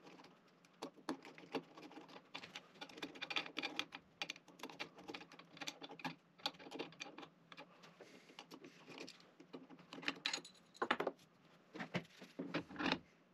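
Faint, irregular clicks, taps and scrapes of a screwdriver working the clamp screws of an aluminium CNC spindle mount, with small metal parts being handled. Near the end, handling noise as the milling motor is picked up.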